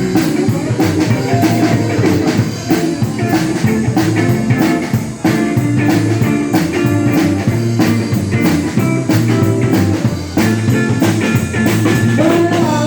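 Live blues-rock band playing an instrumental intro: guitar over bass and drum kit with a steady beat.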